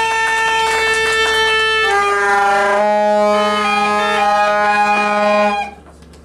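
Plastic vuvuzela-style trumpet horns blown in long, loud, steady blasts, more than one pitch sounding at once, the notes shifting about two seconds in. The blowing stops abruptly about five and a half seconds in.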